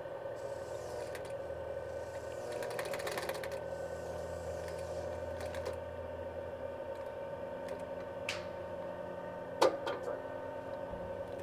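1938 Singer 31-15 industrial sewing machine with its electric motor running at a steady hum. About two and a half seconds in comes a short burst of rapid stitching ticks, and near the end a single sharp clack.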